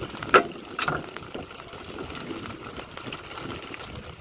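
Two sharp knocks, under half a second apart, near the start, then a steady hiss of light rain falling on the sea with a steady mechanical hum beneath it.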